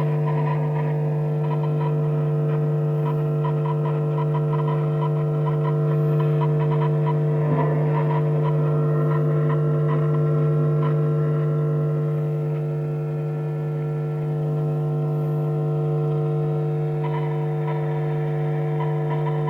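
Laney Cub 12R valve guitar amp humming loudly and steadily, with a fast, irregular clucking crackle over the hum, like a chicken clucking inside. This is an unexplained fault noise, in an amp whose valves glow very bright and hot and whose power switch used to flicker.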